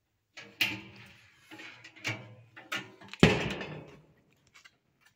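Steel cooking-chamber lid of a reverse-flow barbecue smoker being lowered and shut. A few metal clanks and rattles lead to a loud closing thud a little over three seconds in, which rings briefly.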